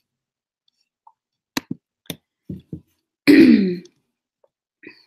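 A woman clearing her throat once, about three seconds in, preceded by a few short clicks.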